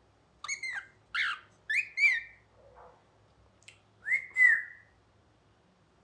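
Cockatiel whistling a string of short, gliding whistled notes in quick bursts, with the loudest, longest note near the end.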